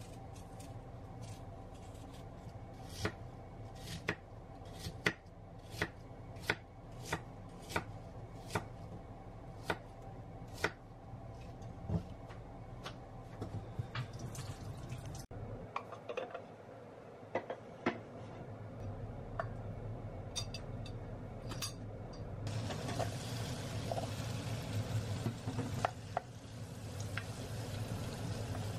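Kitchen knife cutting an apple into chunks on a wooden cutting board: a series of sharp knocks, about one a second. After a break, apple pieces in an enamel saucepan start a steady sizzling hiss as a wooden spatula stirs them, with light clinks.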